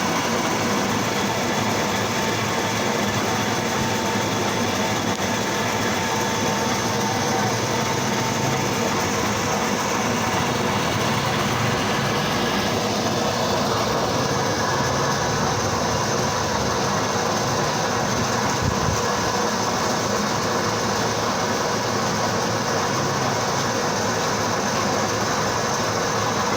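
Plastic scrap crusher machine running steadily, a dense, even machine noise with a faint steady hum in it.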